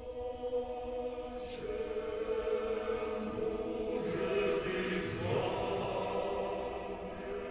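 Vocal music with choir-like held notes, played from a cassette on a Nakamichi SX-Z7 deck through Technics SB-1000 loudspeakers and picked up in the room, with a steady tape hiss underneath and a brief hissy burst about five seconds in.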